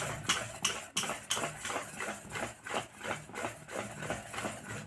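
Wire whisk beating a thick semolina cake batter in a stainless steel bowl, clinking against the bowl in an even rhythm of about three strokes a second, mixing in the baking powder.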